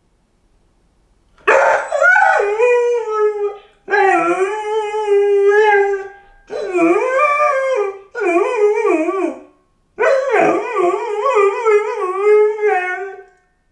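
Golden retriever puppy howling while left home alone: five long, wavering howls in a row with short breaks between them, starting about a second and a half in.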